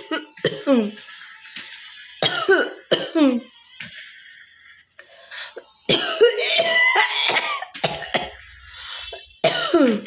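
A woman coughing on purpose, repeated short forced coughs in clusters, with a longer run of coughing about six seconds in and another burst near the end.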